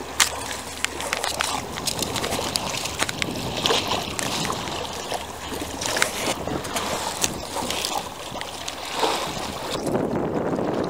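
Oars rowing a small wooden dinghy: water splashing and swishing, with frequent sharp, irregular clicks and knocks from the oars working in their rowlocks.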